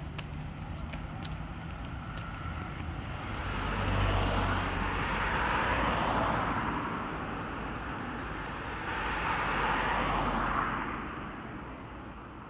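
Street traffic: two cars pass one after the other, each swelling up and fading away over a steady low rumble. A few light clicks sound in the first couple of seconds.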